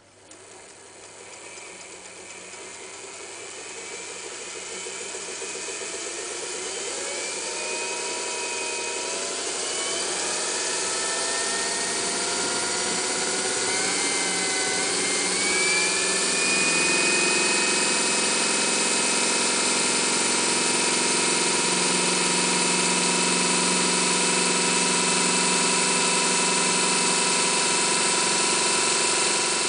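Singer 201K electric sewing machine running, its motor speeding up with a rising whine over roughly the first fifteen seconds, then running steadily at high speed until it stops at the end.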